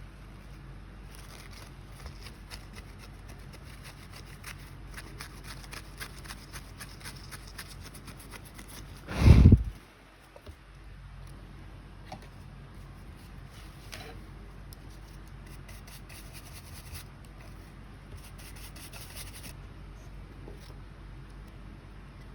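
Small scratching, rubbing and clicking of close hand work on a compact camera's LCD assembly during a polarizer replacement, over a low steady hum. There is one loud thump about nine seconds in.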